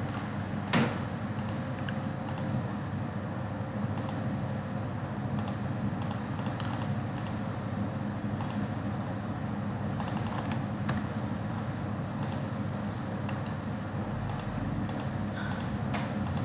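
Irregular, scattered clicks of a computer keyboard and mouse being worked, over a steady low background hum; one louder click comes about a second in.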